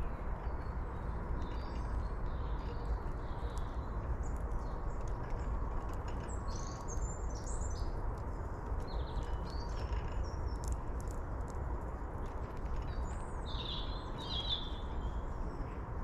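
Small birds chirping in short scattered bursts over a steady low outdoor rumble. The loudest bursts come near the end.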